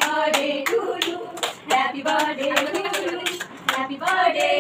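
A small group of young women singing together while clapping along in a steady beat, about three claps a second.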